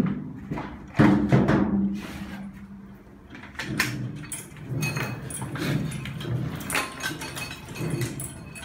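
Two sharp metallic knocks about a second apart, each leaving a fading ringing tone, followed by a run of lighter clanks and rattles.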